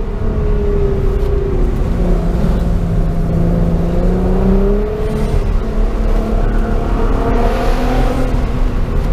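Nissan GT-R's twin-turbo V6 heard from inside the cabin while driving, its pitch climbing and falling as the throttle is opened and eased through a run of bends, over steady road rumble. A short hiss comes in near the end.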